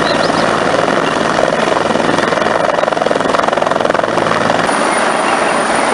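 Helicopter sound effect: a steady, fast rotor chop with engine noise, and a faint high whistle coming in near the end.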